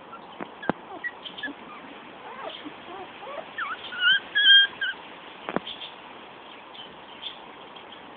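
Five-week-old Jack Russell x Patterdale terrier puppies whimpering, with a few short high squeaks about four seconds in. Two sharp knocks come near the start and just after the middle.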